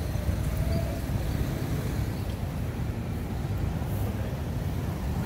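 Steady low rumble of city street traffic, with no distinct events standing out.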